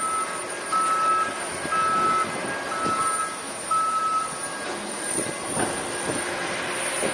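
Wheel loader's backup alarm beeping about once a second, five beeps, stopping about four seconds in, over background engine noise.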